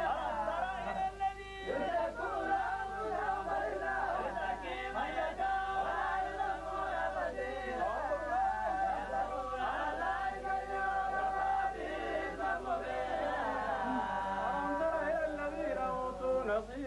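Several men chanting Quranic recitation together in a drawn-out melodic style, their voices overlapping.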